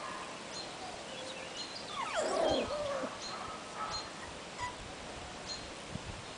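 Bichon Frisé puppies whining and yelping in high cries that slide down in pitch, loudest about two seconds in, with shorter cries later. Faint high chirps recur throughout.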